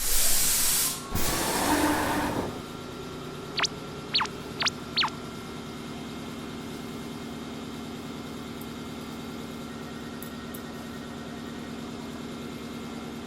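Train sound effect: a loud hiss of released air for about two and a half seconds, four short high squeaks a little later, then the steady low hum of a train running.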